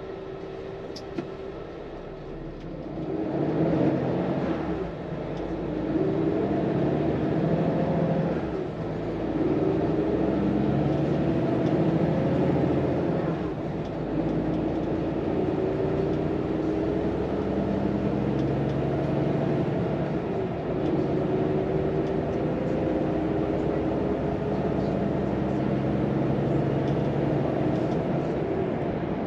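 Volvo FM 420's six-cylinder diesel heard from the cab, picking up about three seconds in and pulling hard, its pitch climbing and dropping back several times as the truck accelerates up through the gears.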